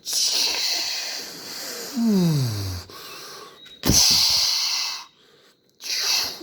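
A person making spaceship sound effects with the mouth: hissing, breathy whooshes, a voiced sound that falls steeply in pitch about two seconds in, and a sharp burst near four seconds.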